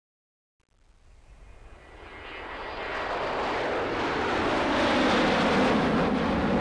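Jet airliner flying by: engine noise and rushing air that start just under a second in, swell over the next few seconds, then hold loud, with a faint whine early on.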